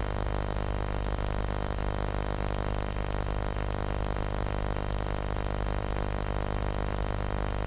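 A steady, unchanging hum made of several even tones over a hiss, with a few faint high chirps near the end.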